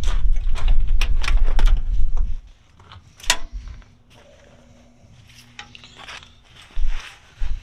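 Rustling of a hi-vis vest and handling bumps as it is carried into a truck cab, with low rumbling for the first two seconds or so, a sharp click about three seconds in, and two dull thumps near the end.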